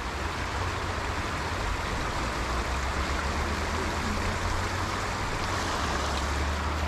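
Steady rushing of creek water pouring over a jam of logs and debris.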